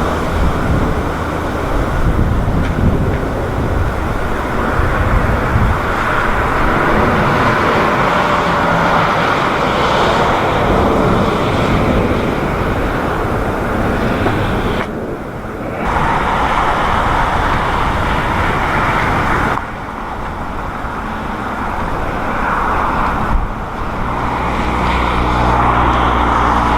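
Jet airliner engines running loud and steady, mixed with strong wind rumbling on the microphone. The sound changes abruptly a few times, as at cuts between clips.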